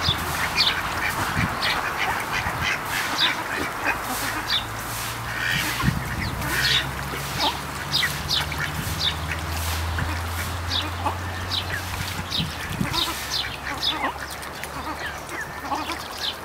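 Domestic ducks quacking again and again with short calls while swimming, over a low, steady hum.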